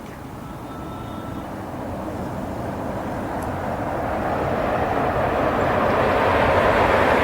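High-speed bullet train approaching on the line, a rushing roar that grows steadily louder as it nears.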